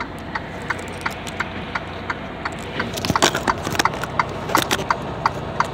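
Steady ticking, about three ticks a second, over the low hum of an idling truck heard from inside the cab, with a few louder irregular knocks and clicks in the middle.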